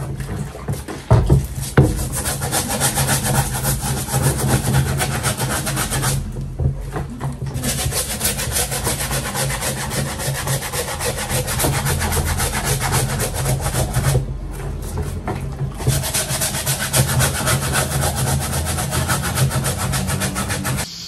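Stiff hand brush scrubbing a white canvas sneaker, in rapid back-and-forth strokes with two short pauses.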